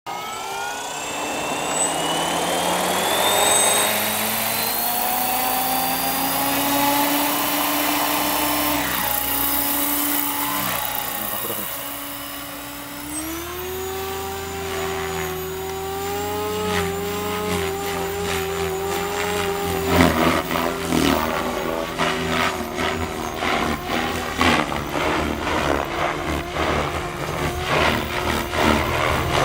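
Electric Goblin 500 RC helicopter's motor and rotor spooling up with a rising whine. The whine levels off, drops briefly and climbs again about thirteen seconds in. In the last third the sound turns uneven and choppy.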